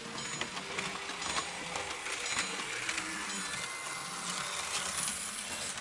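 Märklin model railcar running along the track: a steady rattling whir of its motor and wheels, with many small clicks as it runs over the rail joints.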